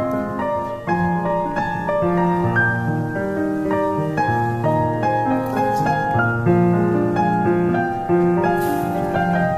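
Background piano music, a continuous flow of sustained notes and chords.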